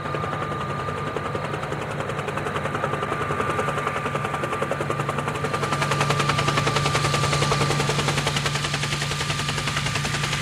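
Robinson R44 helicopter in flight: a fast, even chop of the rotor blades over a steady engine drone and a thin steady whine, picked up by a camera on the tail boom. It grows a little louder about halfway through.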